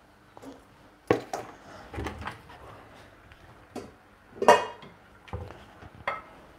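Dishes and bowls knocking and clinking as they are handled on a kitchen counter: several separate knocks, the loudest a short ringing clink about four and a half seconds in.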